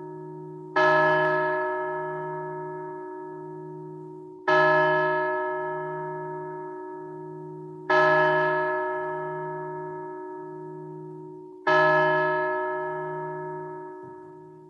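A church bell tolling: four slow strokes about four seconds apart, each ringing on and fading, with a low hum that pulses under the ring.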